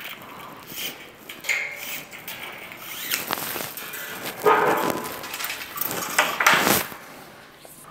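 Loose steel MIG welding wire scraping and rattling as it is drawn out of the welding gun, with scattered knocks and clatter from the gun being handled.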